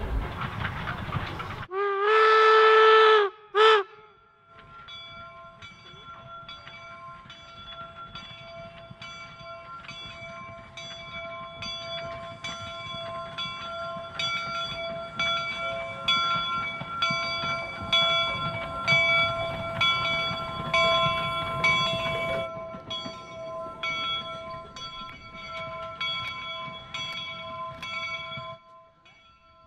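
Replica Union Pacific No. 119 steam locomotive blowing its whistle in one long blast and a short toot. Then its bell rings steadily at an even rhythm over the low rumble of the moving engine, and the bell stops shortly before the end.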